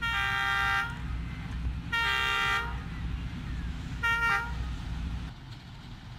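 Diesel-electric locomotive (ZCU 20) air horn sounding three blasts as the train approaches: two longer ones under a second each, then a short third. A low rumble runs underneath and drops away about five seconds in.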